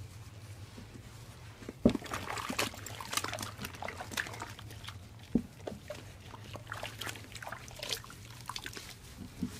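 Bath water sloshing and dripping in a plastic tub as a dog is sponged down with a soapy sponge: irregular splashes and knocks starting about two seconds in, over a low steady hum.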